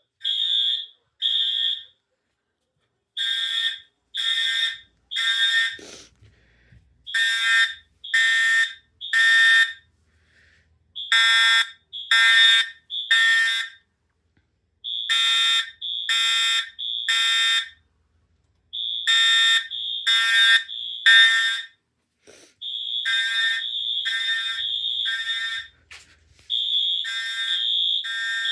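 A Wheelock HS4 horn-strobe and an Edwards Integrity fire alarm horn sound together on code 3, the temporal-three evacuation pattern: three short blasts, a pause, and again about every four seconds. Near the end the two horns drift out of step, so the high tone runs almost unbroken for a few seconds.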